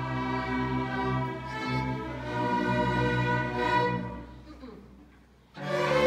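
String orchestra playing sustained bowed notes that fade away about four and a half seconds in, then come back in loudly near the end.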